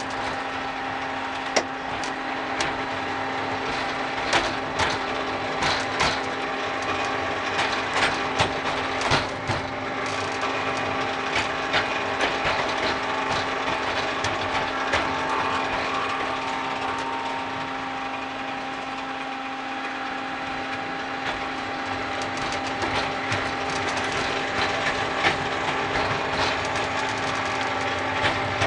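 Small battery-electric ride-on mini train running along its track: a steady motor hum with irregular clicks and clacks from the wheels over rail joints and points.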